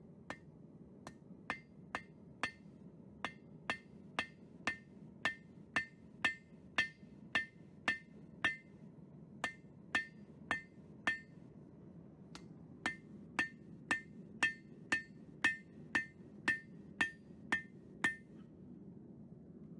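Hand hammer striking steel on an anvil, sharp ringing blows about two a second. The blows come in two runs, with a pause of about two seconds in the middle.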